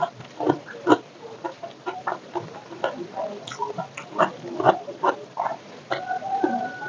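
Close-up eating sounds: chewing with irregular crunches of crispy food and wet mouth noises.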